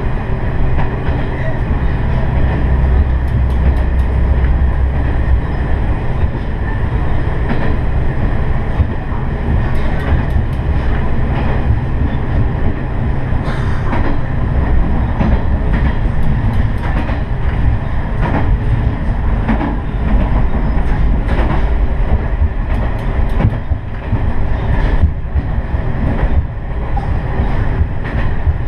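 Diesel railcar running along the line: a steady low engine drone with wheels clicking irregularly over rail joints.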